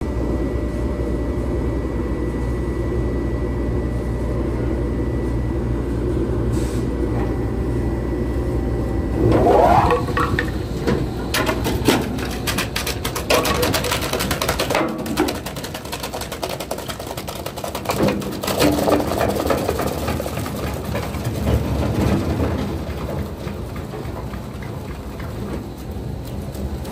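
Weima WL4 single-shaft wood waste shredder running with a steady machine hum. About a third of the way in a rising whine sets in, followed by irregular cracking and snapping as a wooden board fed into the hopper is chewed up by the rotor, with loud cracks now and then.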